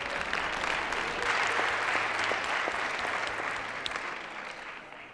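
Audience applause: many people clapping together, building up over the first second, then dying away toward the end.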